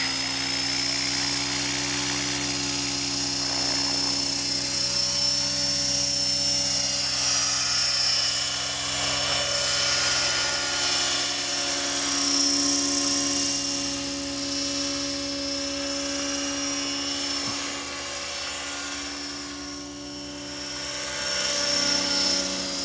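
Align T-Rex 600 radio-controlled helicopter in flight: a steady rotor buzz with a high motor whine, growing fainter in the second half and louder again near the end.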